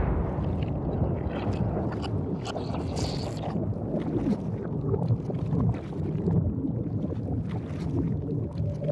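Slow-motion replay of a can of polyurethane construction foam exploding inside a microwave: a drawn-out low rumble full of crackles and ticks as the foam and debris fly out.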